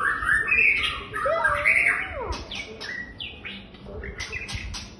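White-rumped shama singing: loud, varied whistled phrases with rising and falling glides, turning after about two and a half seconds to quieter, sharp clicking notes.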